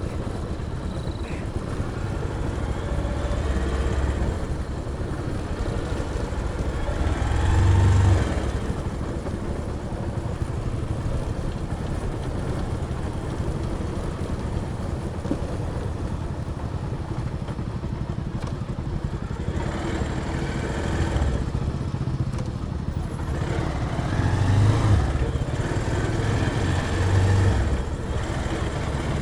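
Motorcycle engine running under way, with a steady low drone and road noise. The engine swells louder a few times as the throttle opens.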